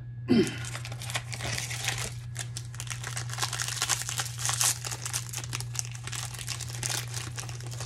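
Plastic foil wrapper of a 2021 Topps Update baseball card pack crinkling as it is handled and torn open, with many small crackles and a brief bump just after the start.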